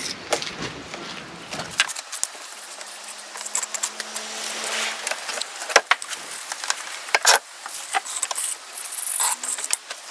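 Bricklaying tools at work: a steel trowel scraping mortar, with sharp knocks and clinks of the trowel and a spirit level against concrete blocks and timber boards, loudest about six and seven seconds in.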